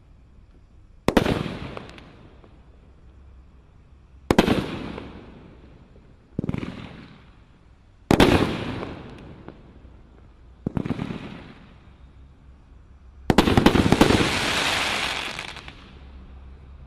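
A 13-shot, 350 g consumer fireworks cake firing six shots in turn, each a sharp bang followed by a fading crackle, about every two to three seconds. About 13 seconds in comes a longer, denser stretch of crackling that lasts about three seconds.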